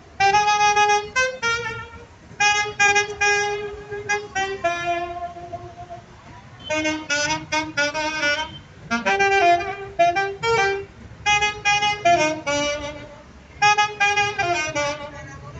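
Solo saxophone playing a melody in phrased runs of held and moving notes, with a short pause about five seconds in.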